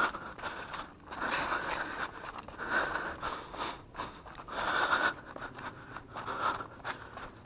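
A runner's footsteps on a dirt trail covered in dry leaves, scuffing and crunching, with heavy breathing in bursts about every second and a half.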